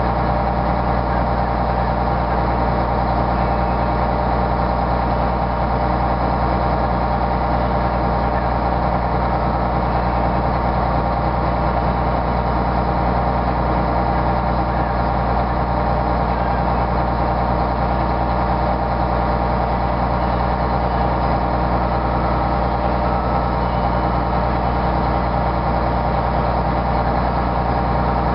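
Snowcat's diesel engine running steadily at constant revs as the groomer pushes snow, a loud, unchanging drone.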